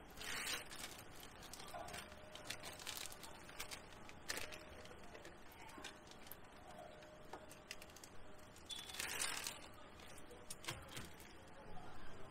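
Quiet handling noises: scattered light clicks and knocks, with two short rustling hisses, one about half a second in and one around nine seconds in.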